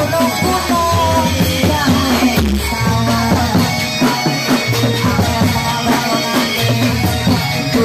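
Live ensemble music accompanying a reog mask dance: a steady drum beat over held bass notes, with a melody line on top.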